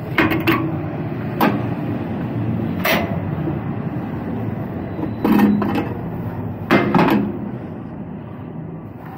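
A semi tractor's diesel engine idling, with about six knocks and clanks of boots and hands on the metal deck plates and steps behind the cab. The loudest clanks come about five and seven seconds in.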